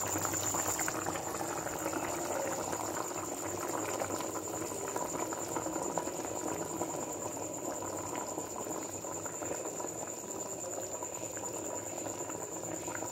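Chicken curry at a rolling boil in a clay pot: steady, dense bubbling and popping.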